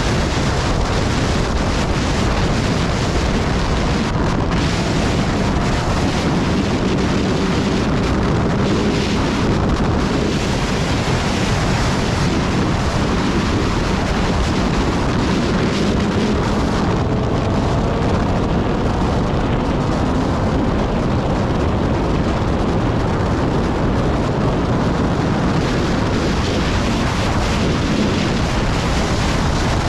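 Motorcycle riding at speed, with loud, steady wind rushing over the microphone. Underneath it the engine note runs faintly, rising in pitch now and then as the revs climb.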